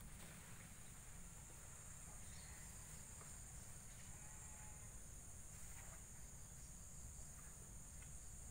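Faint, steady high-pitched buzzing of insects over a low outdoor rumble.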